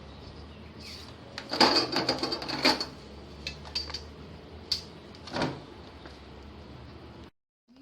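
A quick run of sharp clicks and knocks, then a few single clicks, over a steady low hum. The sound cuts out abruptly near the end.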